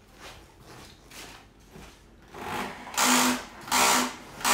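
Mark's Bottle Washer starting up, its pump running and spraying water in a pulsing rhythm: faint pulses at first, then from about two seconds in, loud surges of rushing water about every 0.7 s, each with a low hum.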